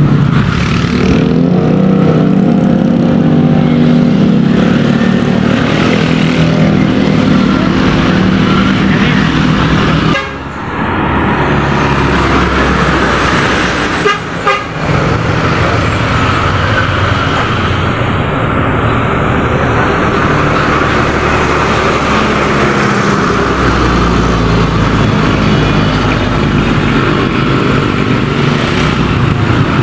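Large tour buses driving past in busy road traffic, engines running among motorcycles, with a vehicle horn sounding held tones through roughly the first ten seconds.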